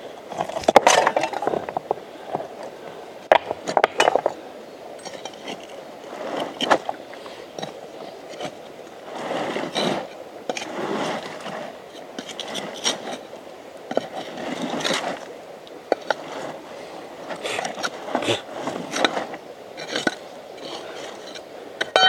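River stones and gravel being shifted by hand, scraping and clinking against each other in irregular bursts, with a few sharper knocks of stone on stone.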